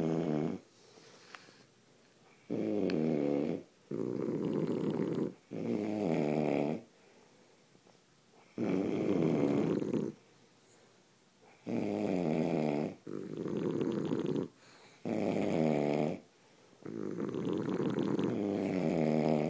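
English bulldog snoring while asleep: a long run of pitched, rattling snores, each about a second long, often in close pairs with short quiet gaps between.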